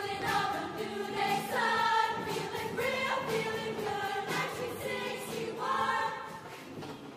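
Show choir singing in harmony, a run of held chords changing about once a second.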